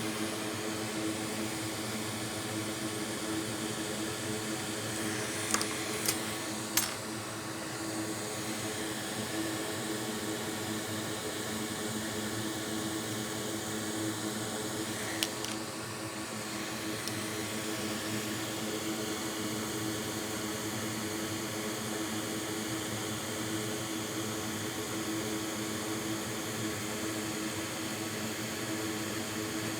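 Hot air rework station blowing steadily, a fan hum with a few light clicks from tools around six seconds in and once near the middle.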